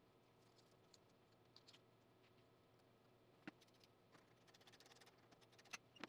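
Near silence with faint scattered clicks and light taps of hands working on a snowblower's carburetor. There is a sharper click about three and a half seconds in, a short run of quick light ticks after it, and another click near the end.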